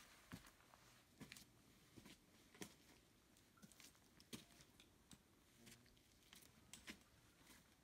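Near silence, broken by faint, irregular clicks and scuffs of hiking boots stepping up a rocky trail.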